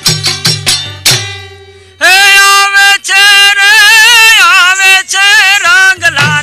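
Gujarati folk music: a quick run of drum strokes over a low hum, then a loud melody line comes in about two seconds in, holding notes and bending them in wavering runs.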